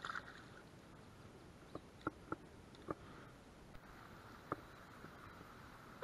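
A small smallmouth bass splashing back into the shallow creek as it is released, followed by about five sharp clicks spread over the next few seconds, against a faint steady hiss of moving water.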